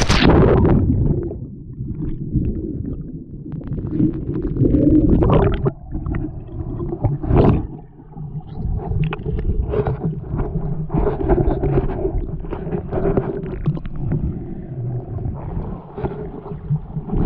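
A splash as a snorkeler goes into the water, then the muffled, rumbling underwater sound of water moving around the camera, with irregular gurgles and crackles of bubbles.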